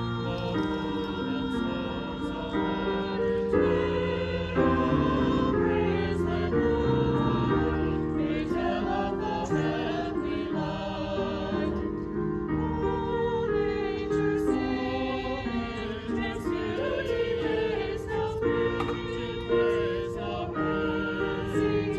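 Small mixed choir singing a hymn in parts, with electronic keyboard accompaniment.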